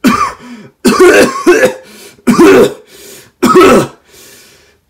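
A man's voice, voicing a toy rat character, making five short, gruff, throat-clearing-like noises without words.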